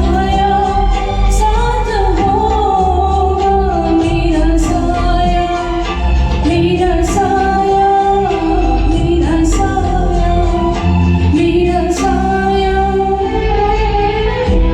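A woman singing a Hindi film song in long, held, gliding phrases over instrumental accompaniment with bass and a regular percussion beat.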